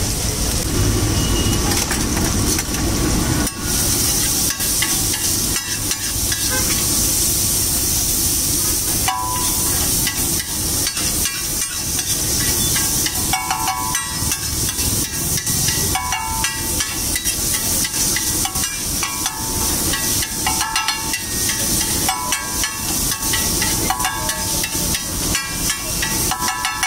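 Flat metal spatula chopping and scraping chopped tomato, onion and chilli on a large hot tawa griddle, with a steady sizzle underneath. From about a third of the way in, the spatula strikes come in quick runs of sharp metallic clatter with a short ring.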